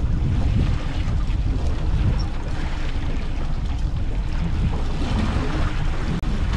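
Wind buffeting the microphone on a boat at sea: a steady low rumble, with sea and boat noise beneath it.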